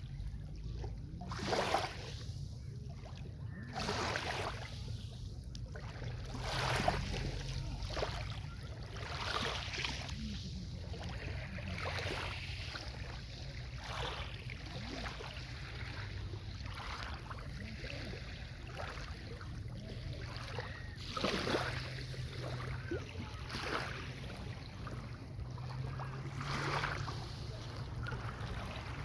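Sea waves washing onto the beach, one wash of surf every second or two, with a steady rumble of wind on the microphone.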